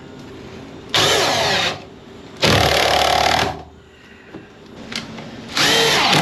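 Cordless drill with a right-angle bit attachment driving self-drilling screws through a pine furring strip into a metal ceiling rib. It runs in three short bursts: about a second in, about two and a half seconds in, and again near the end.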